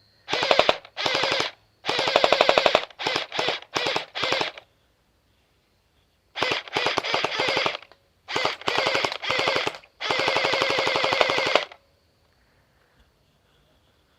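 SCAR 168 gel blaster firing full-auto in bursts: the battery-driven motor and gearbox cycle rapidly, each burst a fast rattle of shots. There are several short bursts, then longer ones, the longest running about a second and a half before stopping near the end.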